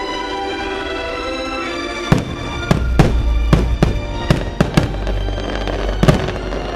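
Fireworks show: about eight sharp firework bangs in quick succession from about two seconds in, with a low rumble under them, over orchestral music from the show's loudspeakers.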